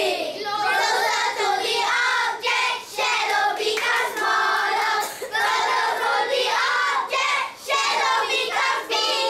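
A class of young children singing a song together in unison, phrase after phrase with short breaks between lines.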